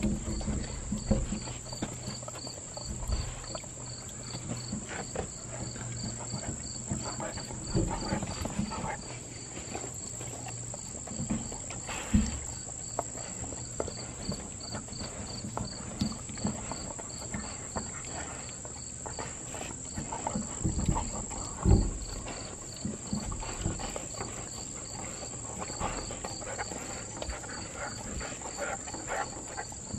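Dogs licking peanut butter off suction-cup lick mats stuck to a glass door: irregular wet licking and tongue clicks, with a couple of louder thumps. Behind them, insects chirp steadily with a high, evenly pulsing call.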